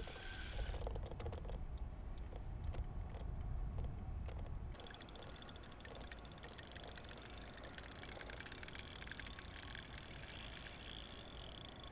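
Large carp spinning reel being cranked to wind in line, its gears ticking rapidly from about five seconds in, after a few seconds of low rumble and rod handling.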